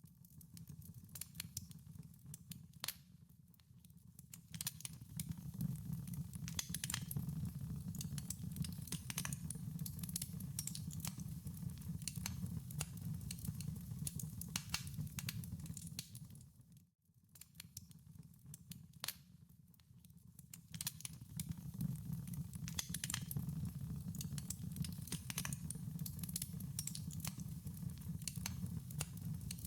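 Wood fire in a fireplace crackling, with irregular sharp pops over a low, steady rumble of the flames. The sound cuts out briefly about halfway through, then returns.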